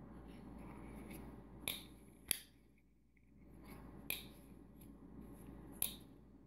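Spyderco Native Chief folding knife being flicked open and shut, its blade and back lock giving four sharp snapping clicks. The action runs smoothly now that its phosphor bronze pivot washers have been polished.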